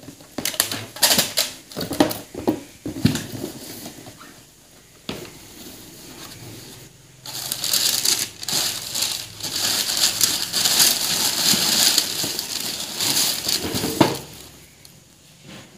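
Cardboard shoe box being handled and opened, with a run of sharp knocks and scrapes in the first few seconds. From about halfway in, tissue paper wrapping rustles and crinkles continuously as it is pulled back and lifted out, with a single knock near the end.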